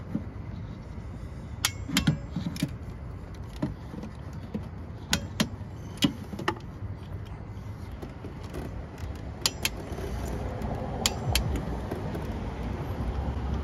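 Scattered sharp metallic clicks and clinks of a steel socket and hand tools knocking against engine parts while a dropped 10 mm socket is fished out, irregular and about a dozen in all, over a steady low hum.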